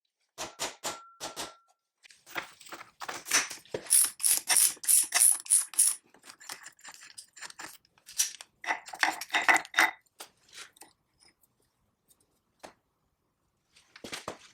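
Hand tools clicking and clinking on metal machine parts during disassembly: a few sharp clicks, then a quick run of about six clicks a second in the middle, another cluster a little later, and scattered faint ticks near the end.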